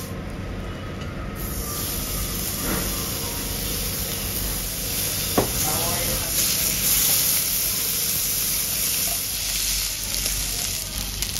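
Raw pork belly slices sizzling on a hot round grill plate, the hiss starting about a second in as the first slices go down. A couple of sharp clicks of metal tongs on the grill.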